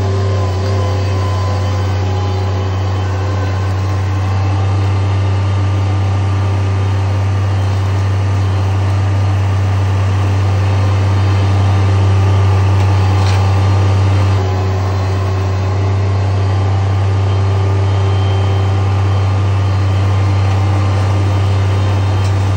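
Bobcat MT100 mini track loader's engine running steadily with a deep hum, while the machine lifts and carries a firewood-filled IBC tote cage. The level dips slightly about two-thirds of the way through.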